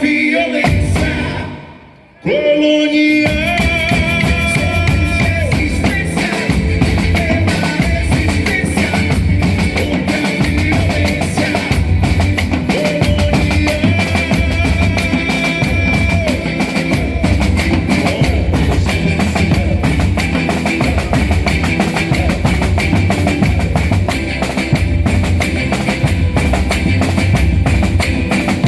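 Boi-bumbá toada music with heavy drums and percussion playing as a loud backing track. The music briefly drops away about two seconds in, then comes back in full a second later and carries on with a steady driving beat.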